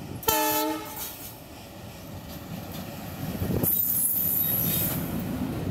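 A diesel locomotive's horn gives one short blast just after the start. Then the passenger train runs past close by, its rumble growing louder as the locomotive and coaches pass, with a high wheel squeal for about a second and a half near four seconds in.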